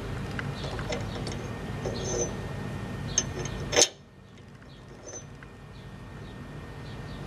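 Light metallic clinks and ticks of small metal tools or parts being handled, with a sharper click a little under four seconds in, after which the steady background hum drops away suddenly and slowly comes back.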